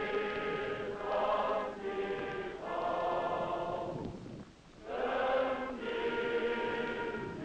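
A choir singing slow, held chords, with a short break between phrases about four and a half seconds in.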